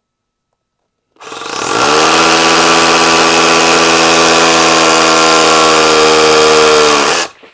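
SDS rotary hammer drill at top speed in drill-and-hammer mode, boring a 7 mm bit through a concrete block. It starts about a second in, rises in pitch as it comes up to speed, runs loud and steady for about five seconds, then stops suddenly.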